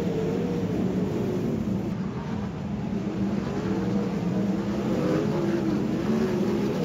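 Sprint car engines racing around the dirt oval, several at once, their pitch rising and falling continuously as the cars go on and off the throttle through the corners.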